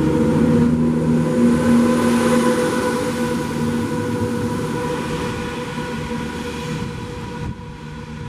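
Class 170 Turbostar diesel multiple unit passing close by and moving away, its diesel engines humming with steady tones that gradually fade.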